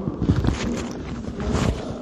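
Muffled rustling and bumping of cloth or hands against a recorder's microphone, with many short crackles and low thumps.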